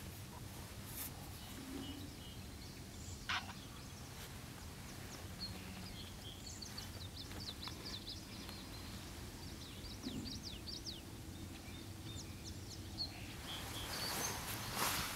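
Wild birds calling in a wetland: a run of short, high-pitched chirps through the middle, over a steady low background hum. There is a sharp click about three seconds in and a brief burst of noise near the end.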